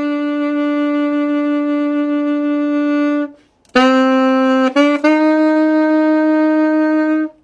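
Solo saxophone playing a slow worship melody: one long held note that stops about three seconds in, a short pause, then a quick two-note lead-in to another long held note that ends just before the close.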